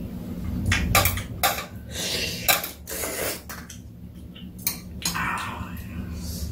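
Two people eating ramen from bowls with chopsticks: a string of short clicks and scrapes of chopsticks against the bowls, with noodles slurped in between.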